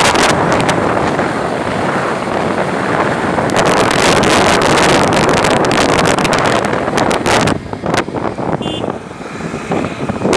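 Heavy wind rushing and buffeting on the microphone of a phone held out on a moving two-wheeler at highway speed, with road noise underneath and knocks from the phone being handled. About three quarters of the way through the rush drops and becomes choppier.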